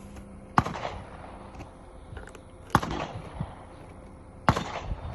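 Three sharp metallic clacks about two seconds apart, each with a brief rattle: .22 LR cartridges being handled one at a time as they are counted out of the storage compartment of a LifeCard .22 pocket pistol.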